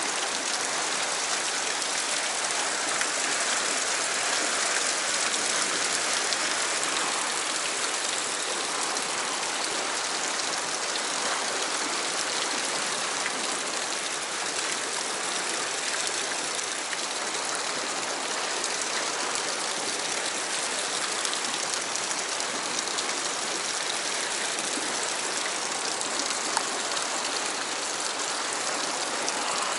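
Fast river current rushing over rocks as whitewater, a steady close hiss and splash of moving water.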